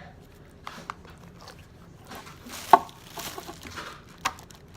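Putty slime being squeezed and poked with the fingers: scattered small sticky clicks and squelches, with a sharp snap about two and three-quarter seconds in and another near the end.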